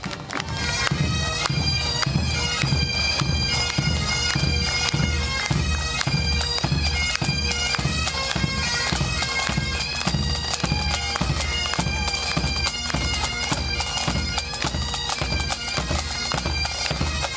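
Highland pipe band playing a march: bagpipes sound a melody over a steady drone while the drums beat a regular rhythm. The music comes in loudly about half a second in.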